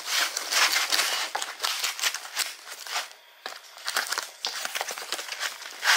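A plastic-wrapped cardboard box being cut and torn open by hand with a knife: crinkling plastic film, scraping and ripping cardboard in quick, irregular strokes, with a short lull about halfway through.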